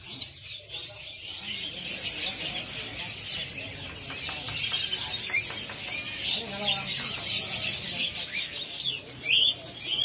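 Many caged songbirds chirping and calling at once: a dense, overlapping twitter of short high notes and trills.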